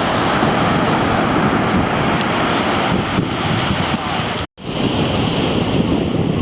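Ocean surf washing onto the beach, with wind buffeting the microphone. The sound drops out for an instant about four and a half seconds in, then carries on the same.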